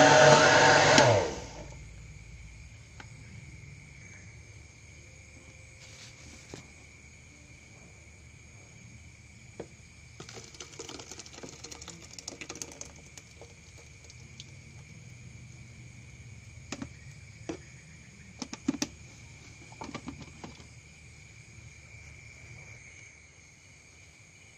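Philips countertop blender running on a jar of duckweed and switched off about a second in. After that, scattered faint knocks and clinks of the glass jar and plastic bucket as the thick green slurry is poured out, over a faint steady high tone.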